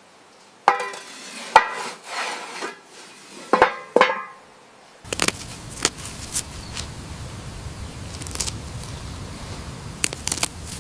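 A handful of sharp knocks and ringing clinks, like hard objects struck or set down, in the first four seconds. About five seconds in, the background switches to a steady hiss with scattered light clicks.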